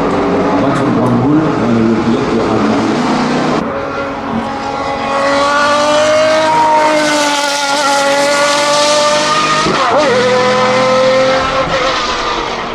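Jaguar XJR-9 Group C race car's naturally aspirated 7.0-litre V12 running hard on track, a mix of engine noise at first. Its note then rises in pitch as the car builds speed, dips sharply about ten seconds in, and runs on at high revs.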